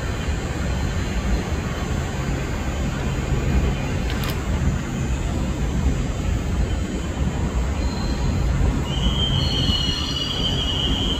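New York City subway train pulling away, a steady low rumble of motors and wheels on the rails. About nine seconds in, its wheels begin a high squeal as it rounds a curve.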